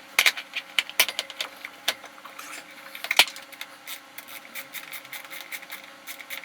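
Metal brake parts and hand tools clicking and knocking as they are handled, with a few sharp knocks in the first three seconds and quicker, lighter clicking after. A faint steady hum runs underneath.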